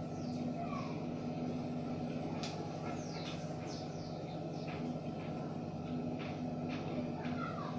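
Small birds chirping now and then, short calls that sweep downward in pitch, over a steady low hum.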